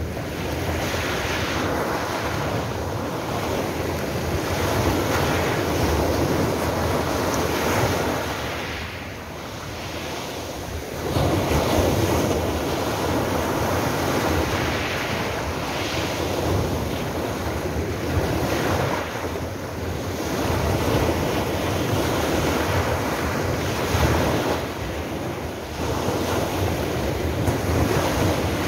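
Sea waves breaking and washing up a pebble beach, a continuous wash that swells and ebbs with each wave. There is a lull about a third of the way through before a bigger wave surges in. Wind buffets the phone's microphone.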